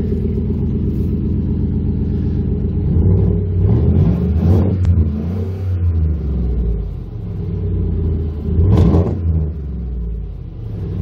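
Chevy Silverado's 5.3 L LS V8 running through straight dual exhaust pipes with the catalytic converters cut out: idling steadily, then revved in short blips about three to five seconds in and once more near nine seconds.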